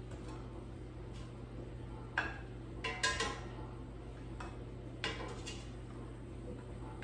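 Metal kitchen tongs clicking and clinking against a plate and the air fryer basket as chicken wings are lifted across. The clinks fall in small clusters about two, three and five seconds in, over a steady low hum.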